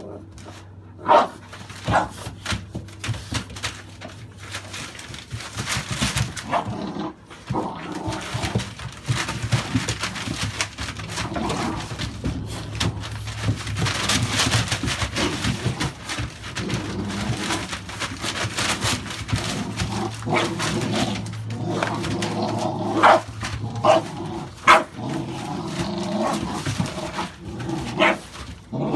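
Two American Staffordshire Bully puppies play-fighting, with short barks and yips scattered through, several of them near the end. Newspaper rustles and crinkles under them as they scuffle, most heavily around the middle.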